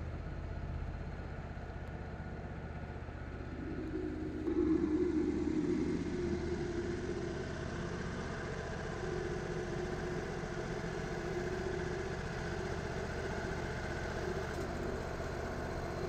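Wood-Mizer LT35 hydraulic band sawmill's engine running steadily between cuts. About four seconds in it grows louder for a couple of seconds, then settles back to a steady run.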